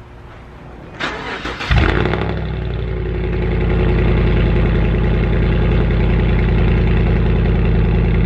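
Lifted Chevy Silverado's engine on a cold start. The starter cranks about a second in, the engine catches with a loud flare, and it settles into a steady, loud idle.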